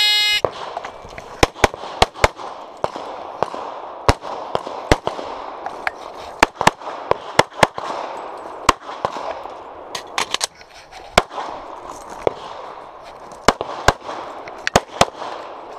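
A competition shot-timer beep for about half a second at the start, then a string of semi-automatic pistol shots, often fired in quick pairs, with short pauses between strings as the shooter moves between positions behind barricades.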